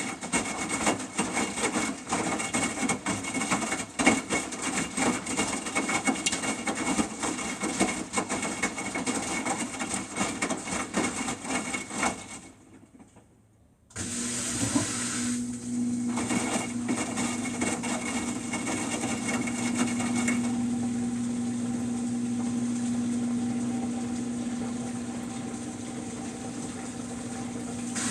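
Samsung washing machine running: a dense, rattling churn of the drum for about twelve seconds, then it stops almost to silence for a moment. It then starts again as a steadier motor hum with a low steady tone.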